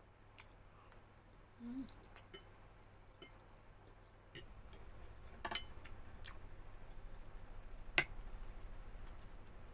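Metal fork clinking on ceramic dishes while eating: scattered light ticks, a quick cluster of clinks a little past halfway, and one sharper clink near the end as the fork meets the egg dish.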